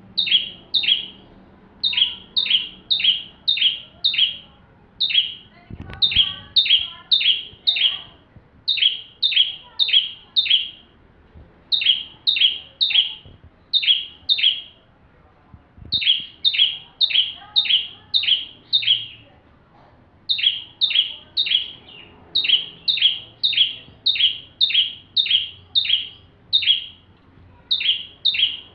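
Ciblek (prinia) singing nonstop: sharp, high chirps, each sliding down in pitch, about three a second in runs of four to eight with short pauses between.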